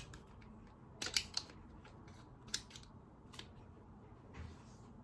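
A few sharp, irregular plastic clicks and snaps as plastic parts of a children's board game are pushed and worked into place, with a faint rustle near the end.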